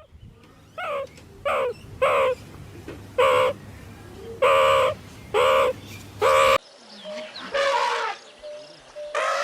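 An animal's short, loud calls repeated about seven times, roughly one a second. About two-thirds of the way in, the recording changes to another clip with a few more calls over a faint steady tone.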